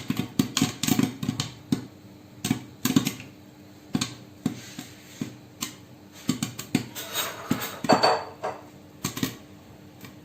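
Popcorn kernels popping in hot oil in a covered pot: rapid pops at first, thinning to scattered pops as the batch nears done, with a brief louder rattle about eight seconds in.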